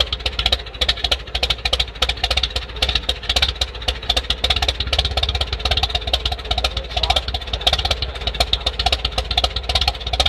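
A 1929 McCormick-Deering tractor's four-cylinder engine idling, with a steady, even firing beat.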